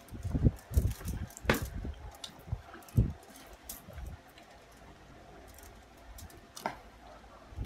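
Eating and table-handling noises close to the microphone: scattered soft thumps and sharp clicks in the first few seconds, then a quieter stretch with one more click near the end.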